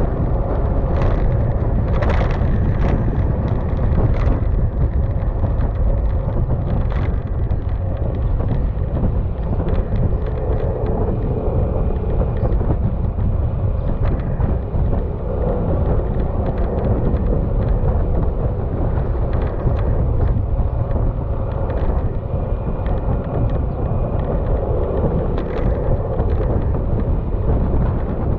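Yamaha XMAX maxi-scooter's single-cylinder engine running steadily at cruising speed, under heavy wind rumble on the microphone. A few brief knocks come about two seconds in.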